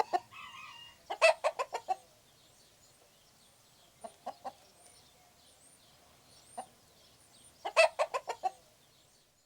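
Domestic hen clucking: a quick run of about six clucks about a second in, a few single clucks in the middle, and another quick run near the end.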